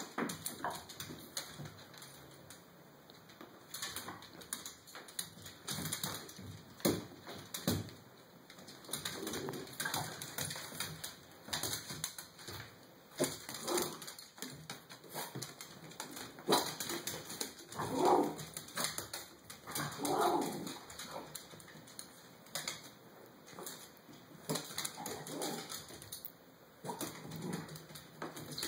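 Small terrier dogs whining and making short yips at their own reflection in a mirror, with a few louder cries about two-thirds of the way through. Their claws click on the hard floor as they shift about.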